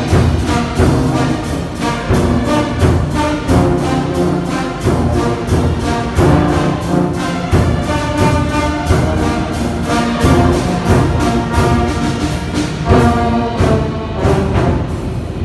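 Brass band playing a carol: brass horns carrying the melody over drums beating a steady rhythm.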